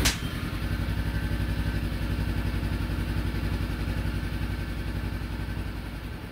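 A motorcycle engine idling steadily with an even, rapid pulsing beat, growing slightly quieter near the end.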